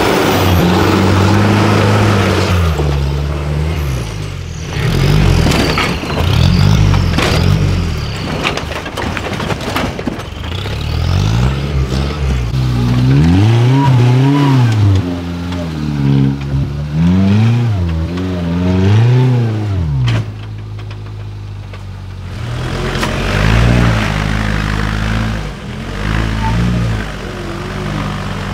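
Engines of modified 4x4 off-road trial vehicles revving up and down again and again as they crawl over rocks and through mud, with a short spell of steadier, lower running a little past the middle.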